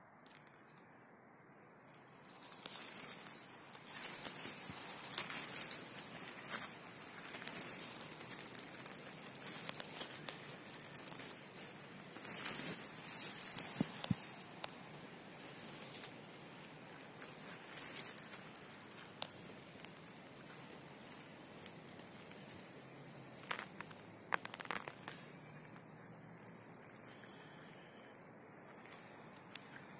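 Hands brushing and raking through dry conifer needles and twigs on the forest floor around a porcino: a scratchy crackling rustle in bursts, busiest in the first half and thinning later to a few sharp snaps and ticks.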